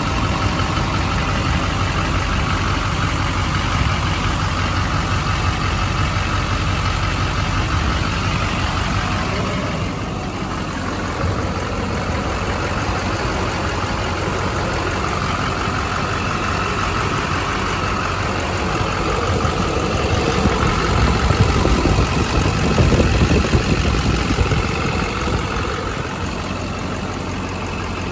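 2007 GMC service bed truck's engine idling steadily, a little louder for a few seconds about twenty seconds in.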